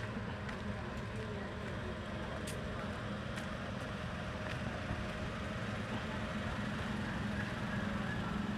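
Steady outdoor background noise of motor traffic, with a low hum and a few faint ticks.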